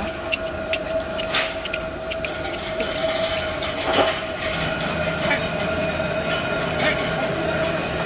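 A steady high mechanical whine over a low rumble, with scattered clicks and knocks; a louder knock comes about four seconds in.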